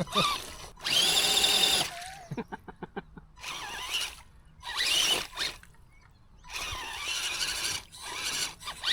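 Electric motor of a radio-controlled truck whining in bursts as it is throttled, the truck still running after fording a stream. A quick run of clicks comes about two seconds in.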